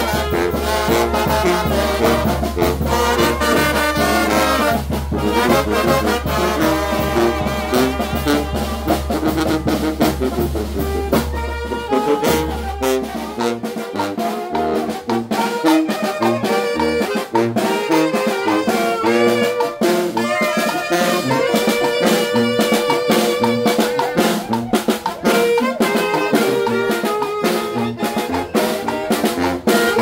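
Oaxacan Mixtec brass band playing a chilena live: trumpets, trombones, saxophones and clarinets carry the tune over snare drum, bass drum and cymbal. A steady low hum sits under the first dozen seconds or so, then stops.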